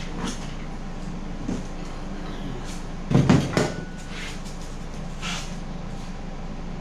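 Hand tools handled and set down on a plywood work surface: a few light clicks, then a heavy thump and clatter about three seconds in, over a steady low hum.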